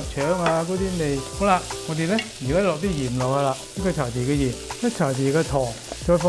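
Diced taro sizzling as it fries in a hot wok, while a wooden spatula stirs and scrapes it around the pan in repeated strokes.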